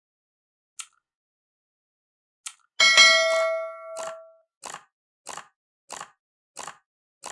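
Subscribe-button animation sound effects: two short mouse clicks, then a bright bell ding whose tones ring out for about a second and a half, followed by a run of short soft ticks about one every two-thirds of a second.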